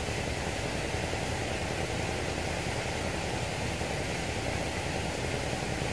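Steady rushing noise with no distinct events, heaviest at the low end.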